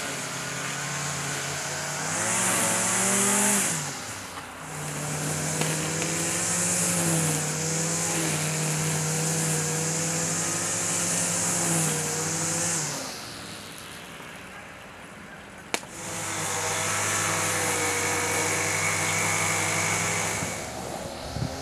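A motor engine running nearby, its pitch rising and falling in three long stretches with short lulls between them. A single sharp click comes about two-thirds of the way through.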